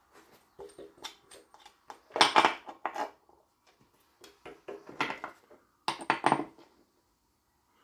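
Metal clinks and scrapes as the knurled retaining caps on the cast rocker cover of a 1936 Dorman 2RB diesel engine are unscrewed by hand. They come as a handful of short bursts, loudest about two seconds in and again around six seconds.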